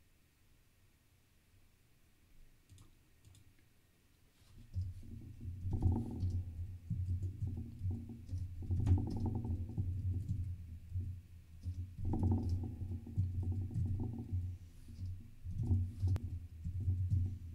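Typing on a computer keyboard: rapid, irregular runs of key presses with a dull thud to each stroke, starting about five seconds in.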